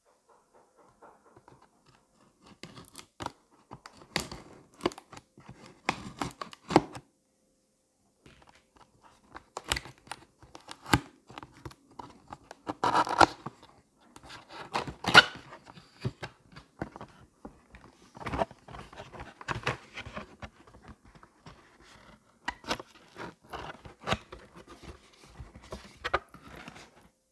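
Hands opening a cardboard retail box: a plastic seal sticker peeled off with a tearing sound, and cardboard scraping, tapping and rustling in irregular bursts, loudest about halfway through. Near the end the plastic air-column cushion packing inside the box rustles under the hands.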